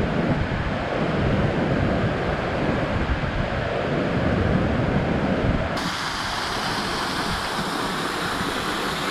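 Steady rushing of a flood-swollen river, with gusty wind on the microphone. About six seconds in it gives way to the brighter, even hiss of a small waterfall pouring down a rock face.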